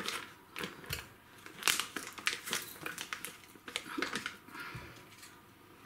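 Butter wrapper paper crinkling and rustling in the hands while soft butter is cut out of it in pieces, in short irregular crackles.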